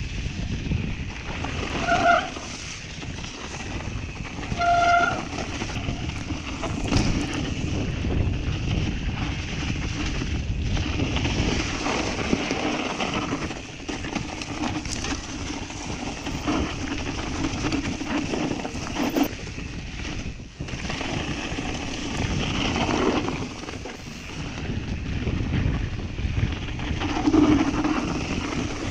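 Mountain bike riding a snowy forest trail: a steady rumble of tyres and rattling frame, with wind on the microphone. Two short, high squeals stand out, about two and five seconds in.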